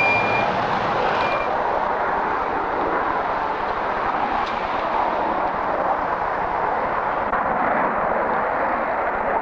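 Jet airliner climbing out after take-off, its engines giving a loud, steady rushing noise. A thin high whistle fades away in the first second or so.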